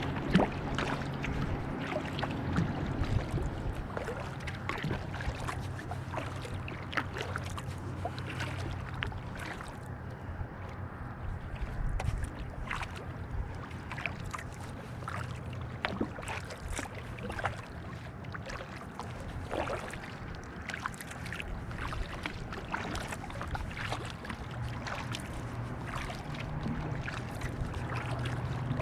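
Kayak paddle blades dipping into calm lake water, with irregular small splashes and drips from stroke after stroke, over a low steady hum.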